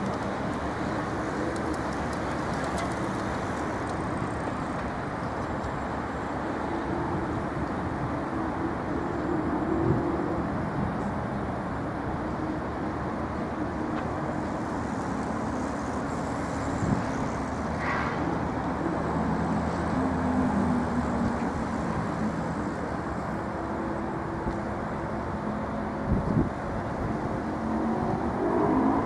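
Street traffic: a steady hum of road noise with motor vehicle engines rising and falling as they pass, and one engine climbing in pitch near the end as it speeds up.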